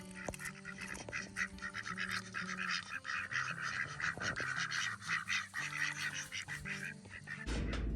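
Poultry calling in a rapid, busy chatter over faint background music, which turns loud near the end.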